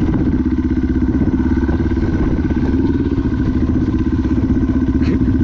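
Single-cylinder four-stroke dirt bike engine running at a steady speed, its pitch holding level throughout.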